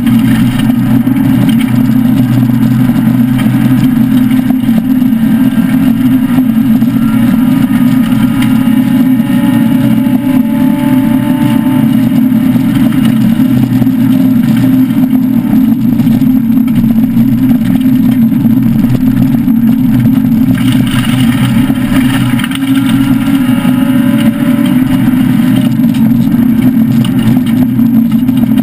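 Citroën SM rally car's Maserati V6 engine running hard at speed, heard from inside the stripped cabin as a loud, steady drone. Its pitch climbs slowly as it pulls through a gear in the middle.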